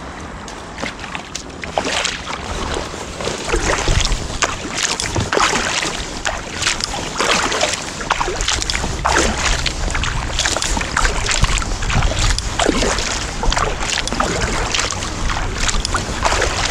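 Kayak paddle blades dipping into calm water, with many irregular small splashes and water dripping and trickling.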